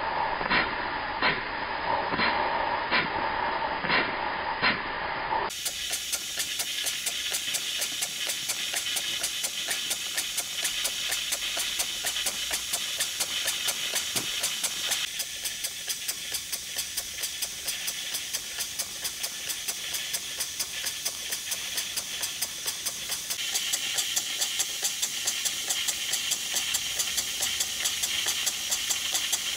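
Model steam mill engine running on live steam: a steady hiss of steam with regular exhaust beats in time with the engine's strokes. The beat is slower for the first few seconds, then quicker after a change about five seconds in.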